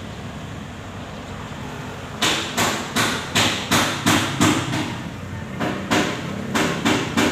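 Hammer blows on metal, struck repeatedly at about three a second, starting about two seconds in over a steady low background noise.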